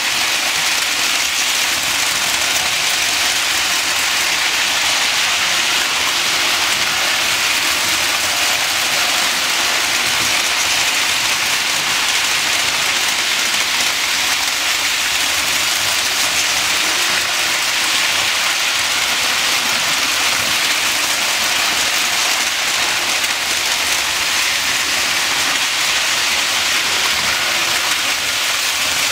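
Several Lionel O-gauge electric model trains running on three-rail track: a steady, even rattle of metal wheels and motors on the rails, with no break.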